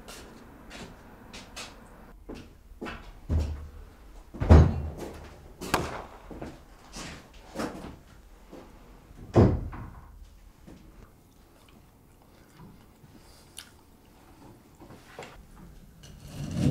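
A run of knocks and clunks from things being handled and a door being worked, with quieter clicks between; the heaviest thuds come about four and a half and nine and a half seconds in.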